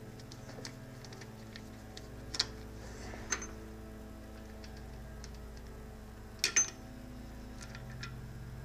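Small metallic clicks and clinks of a screwdriver and small steel parts on a South Bend lathe's cast-iron headstock. There are a few sharper clinks, one a little before halfway and a close double clink about three quarters through, over a steady low hum.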